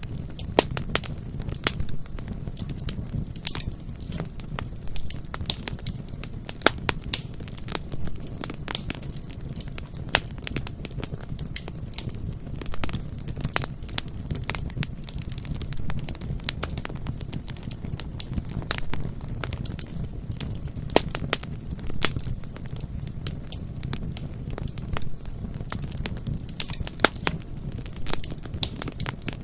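Bonfire burning: frequent irregular crackles and pops over a steady low rumble of the flames.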